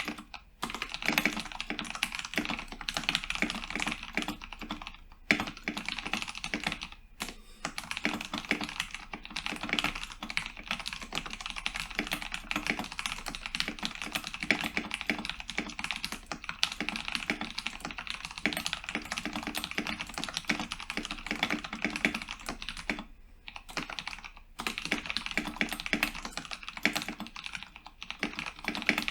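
Continuous typing on a modded Cooler Master MasterKeys Pro S mechanical keyboard with Cherry MX Brown tactile switches: a dense run of key clacks that pauses briefly a few times.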